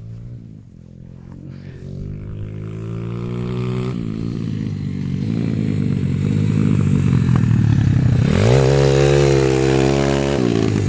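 IMR 140cc XL pit bike's single-cylinder four-stroke engine getting steadily louder as the bike rides up. About eight seconds in it revs up sharply and holds high as it passes close, then drops back just before the end. The owners say the bike now runs much better.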